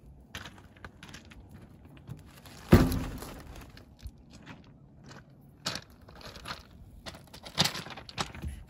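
Footsteps and scuffs on crushed stone with scattered clicks, and one loud thump about three seconds in as a roll of ground fabric is dropped onto a steel loader bucket. A second, smaller cluster of knocks and crackles comes near the end.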